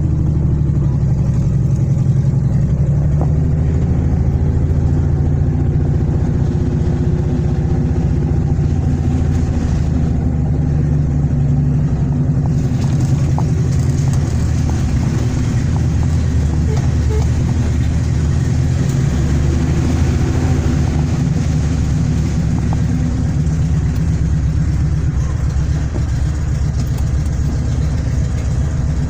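ZAZ-968 Zaporozhets's air-cooled V4 engine running, a steady low drone that shifts a little in pitch. About twelve seconds in, a higher hiss joins it.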